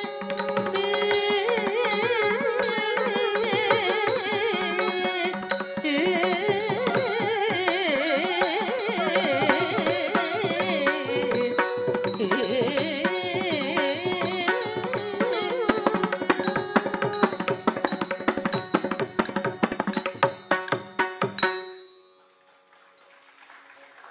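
Carnatic music for Bharatanatyam dance: a steady drone under a wavering melody, with drum strokes keeping the rhythm. The drum strokes grow dense over the last few seconds in a closing flourish, and the music stops abruptly about 21 seconds in, leaving near quiet.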